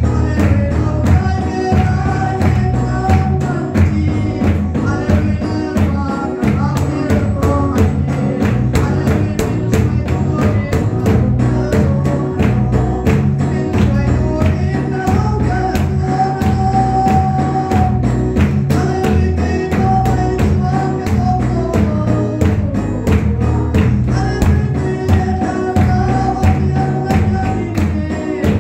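Mizo spiritual dance song (lam zai): a woman sings through the church's microphone and PA over amplified band accompaniment, with a drum kit keeping a steady, even beat and a stepping bass line.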